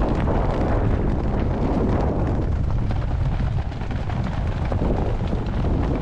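Strong winter sea wind buffeting the microphone: a heavy, steady low rumble that swells and eases slightly with the gusts.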